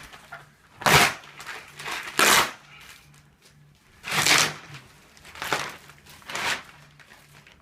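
Plastic bag around a compressed foam mattress being ripped open by hand, in about five short tearing bursts.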